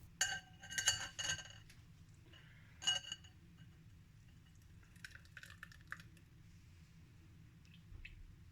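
Kitchen utensils clinking against dishes while blended juice is sifted: a quick cluster of ringing clinks in the first second and a half, one more about three seconds in, then faint handling sounds.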